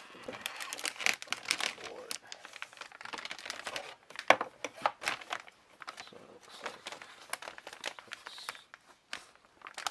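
Motherboard box packaging handled by hand: continuous crinkling and rustling, with many small irregular crackles.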